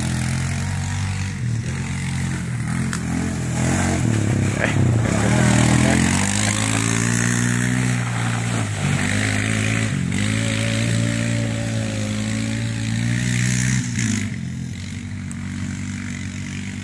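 ATV (four-wheeler) engine revving up and down as it is ridden through mud, its pitch rising and falling again and again. It grows fainter after about fourteen seconds as it moves away.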